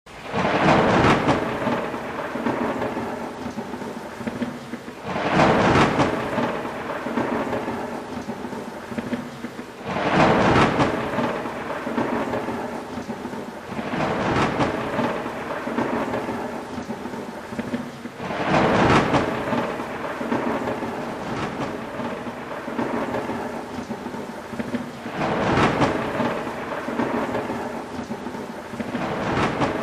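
Thunder rumbling again and again, a loud roll every four or five seconds, over continuous rain.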